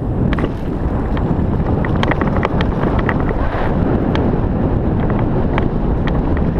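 Wind buffeting a helmet-mounted camera's microphone as a mountain bike rides downhill, with scattered sharp clicks and rattles from the bike over rough ground.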